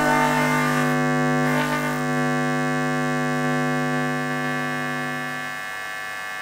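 Sustained electronic drone: a dense chord of many steady tones held without change, slowly fading, its lowest tones dropping out about five and a half seconds in.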